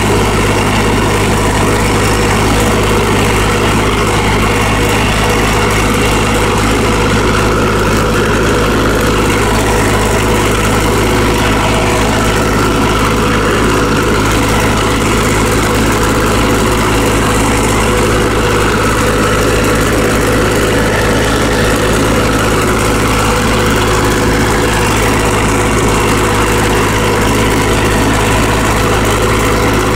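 Farm tractor engine running steadily while the tractor pulls a hay rake, heard close up from the driver's seat.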